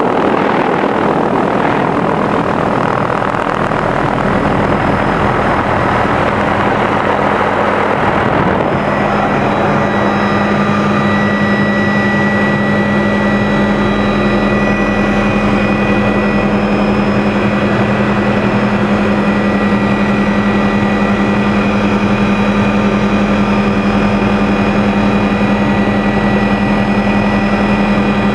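Hughes 500 (MD 369E) helicopter heard from inside its cabin in flight: a loud, steady drone of engine and rotors. For the first several seconds a rushing noise covers it, then about eight seconds in a steady low hum with a fainter high whine above it takes over.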